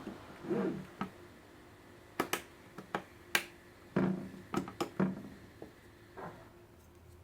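Computer parts handled during assembly: about a dozen sharp clicks at irregular intervals, mixed with a few duller knocks.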